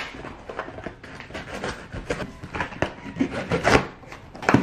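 A knife cutting open a cardboard shipping box, the blade scratching and tearing through the cardboard in irregular strokes, with a sharp knock at the start and another near the end.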